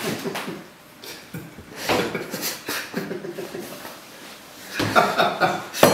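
A man laughing and making wordless vocal noises, with a few sharp knocks, one of them loud near the end.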